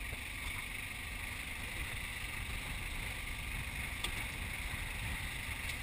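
Steady rumble of wind and sea around a small open fishing boat, with two faint clicks about four seconds in and near the end.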